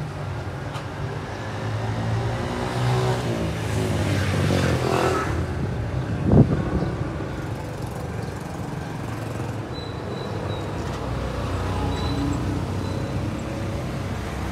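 Street traffic: a motor vehicle passes with its engine note rising and falling, followed by a short loud bang about six seconds in, then steady road noise.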